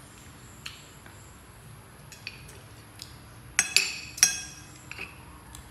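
Spoons clinking and scraping against dishes at a meal: scattered light taps, then three loud ringing clinks in quick succession about three and a half seconds in.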